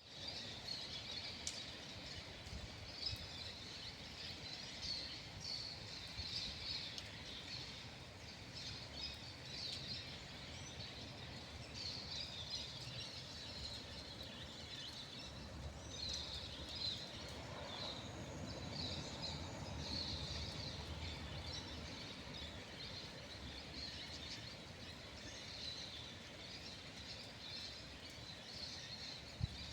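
Many birds chirping and singing together in a continuous chorus, with a low rumble underneath.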